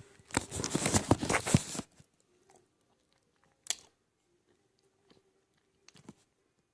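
Close-up chewing of a mouthful of raw cornstarch, crunching: a dense run of crunches for about a second and a half, then three single crunches spaced out near the end.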